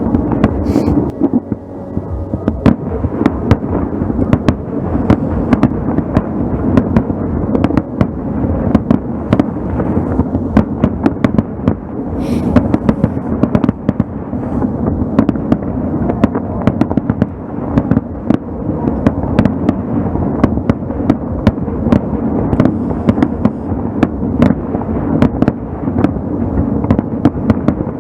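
Fireworks display heard from across the water: a continuous low rumble of shell bursts, with many sharp cracks and bangs on top, irregular and dense throughout.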